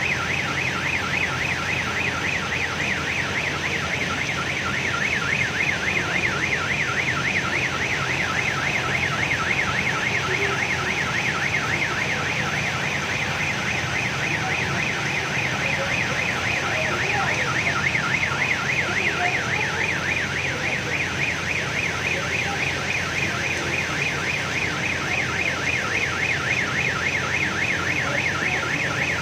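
An electronic alarm warbling continuously, a tone sweeping quickly up and down several times a second without a break, over a steady background hiss.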